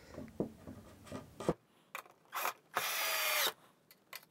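Power drill/driver running a black screw down through a pine shelf into its support: a short blip of the trigger, then a run of under a second whose whine drops in pitch near the end as the screw bites and seats. Light knocks of the screws and board being handled come first.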